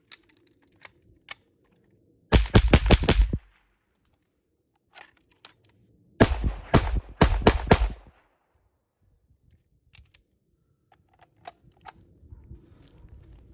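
Suppressed KP9 firing 147-grain subsonic rounds in two quick strings of about six shots each, the second string a few seconds after the first. Faint clicks and clatter come between the strings.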